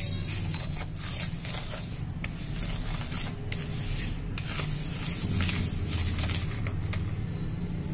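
Whisk scraping and rubbing through granulated sugar and oil in a mixing bowl, in quick repeated strokes against the bowl.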